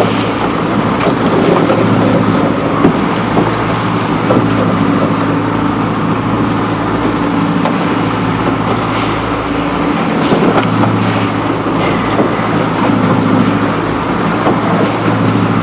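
Inboard engine of a former US Coast Guard 36-foot motor lifeboat running steadily under way, a constant low hum, with wind and water rushing past the hull.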